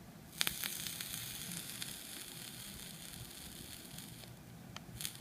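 A freshly built 28-gauge nickel coil, wicked with cotton soaked in e-liquid, sizzling for about four seconds as the mod fires it at around 16 watts. The sizzle starts with a click and stops abruptly, and a couple of short clicks follow near the end.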